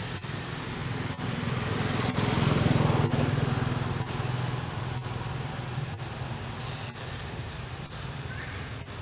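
Road traffic: a steady low engine hum that swells as a vehicle passes, loudest about two to three seconds in, then settles back.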